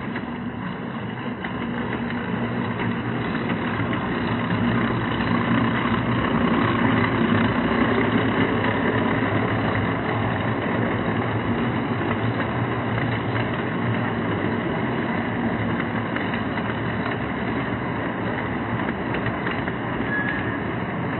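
An O-gauge Lionel model freight train rolling slowly along three-rail track, a steady rumble of metal wheels on the rails with a low, even hum. It grows louder over the first several seconds as the cars pass close by, then holds steady.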